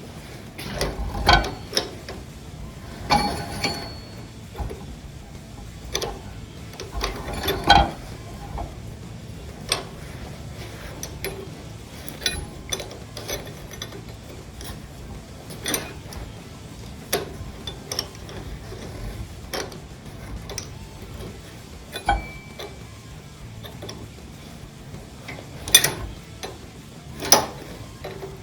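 Wrenches working on a John Deere 2630 tractor engine: irregular metallic clicks, clinks and clanks as the fuel injector lines are loosened and taken off. The loudest knocks come about a second in, around eight seconds, and twice near the end.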